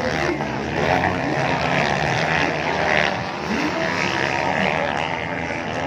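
Several motocross bikes' engines revving on the dirt track at once, their pitch rising and falling as the riders accelerate and back off.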